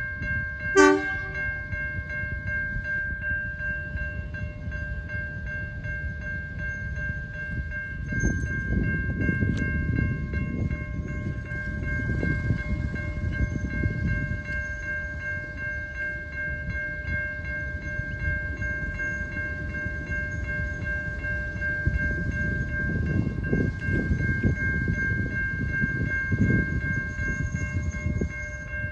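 Level crossing warning bells ringing steadily over the low rumble of a diesel locomotive creeping toward the crossing at walking pace, with a brief loud tone about a second in.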